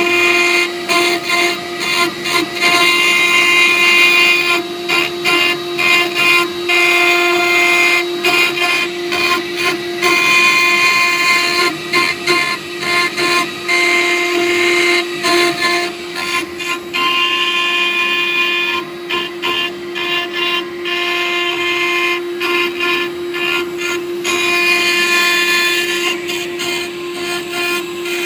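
CNC router spindle whining steadily while its bit engraves glass, the cutting noise rising and dipping many times a second.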